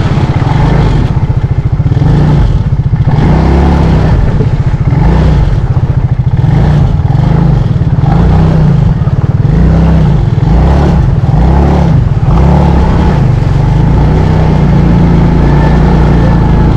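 Quad (ATV) engine, loud and close, revving up and down over and over as the machine drives through a shallow stream.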